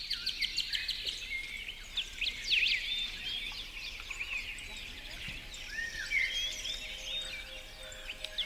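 Several songbirds singing at once: a dense, overlapping chorus of quick chirps, whistles and trills.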